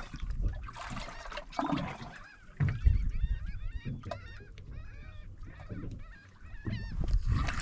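A bird calling: a quick run of short, arched high cries, repeated many times, over a low rumble.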